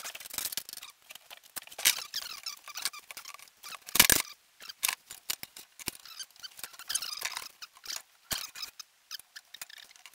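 Steel bar pieces and clamps being handled and clamped together on a workbench: irregular clinks, scrapes and squeaks, with one loud knock about four seconds in.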